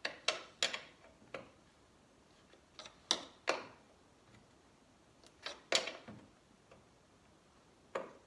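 Wrenches on a snowmobile chaincase's chain-tension adjuster: sharp tool clicks and clinks, irregular and sometimes in quick pairs, as the 17 mm lock nut is tightened down while the adjuster bolt is held.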